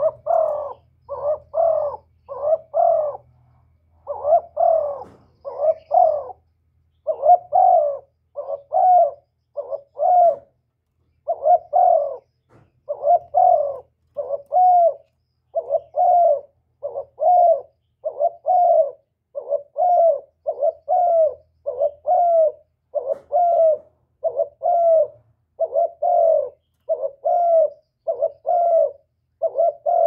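Spotted dove giving a repeated bow-coo, one short, low, pitched coo about every second, with a couple of brief pauses.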